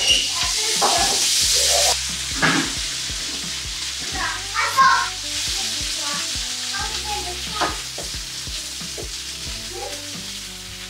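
Asparagus sizzling in a hot frying pan as balsamic vinegar is poured in, the sizzle loudest for the first two seconds and then settling. Kitchen tongs click against the pan as the asparagus and green peas are stir-fried.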